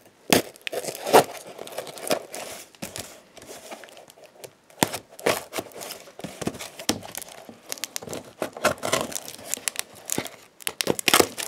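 Packing tape being picked at and peeled off a cardboard shipping box by gloved fingers: irregular crinkling and tearing crackles.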